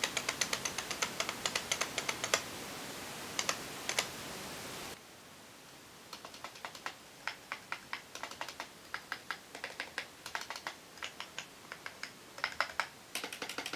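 Typing on a Trust GXT 860 Thura semi-mechanical keyboard: quick runs of clicks from its hybrid mechanical-membrane switches. The typing comes in two stretches, with a short pause about four to five seconds in.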